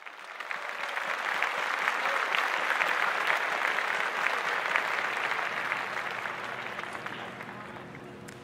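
Theater audience applauding: many hands clapping together, swelling within the first second, holding, then dying away over the last couple of seconds.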